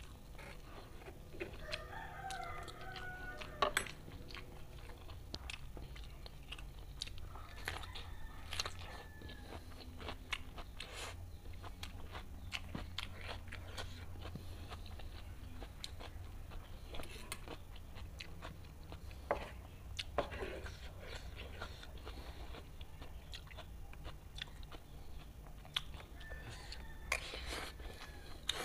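Close-up chewing and mouth sounds of a person eating fried noodles, with scattered sharp clicks. A rooster crows in the background a second or two in, and more faintly again later.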